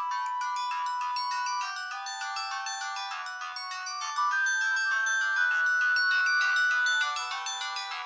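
Sendo S360 mobile phone playing a ringtone melody through its speaker: a run of short, even notes with several sounding together, dipping quieter for a couple of seconds early on the way and coming back up about four seconds in.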